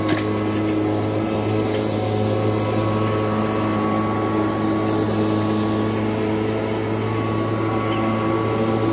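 Kirby Heritage II upright vacuum cleaner running steadily with a hum, with scattered crunching clicks as it picks up grit and debris off a rug.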